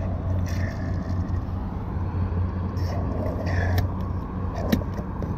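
Petrol dispenser nozzle pumping fuel into a car's filler neck as the tank is topped up to the brim. A steady low hum stops about four seconds in, followed by a sharp click.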